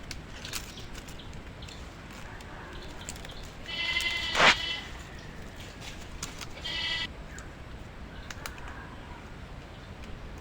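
Two short bleating animal calls about two and a half seconds apart. A sharp loud knock lands near the end of the first call, and scattered light clicks and knocks are heard around them.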